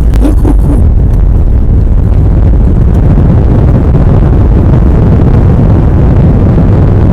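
Airbus A321 on its landing roll, heard from the cabin: a loud, steady low rumble of engines and runway that grows fuller a few seconds in.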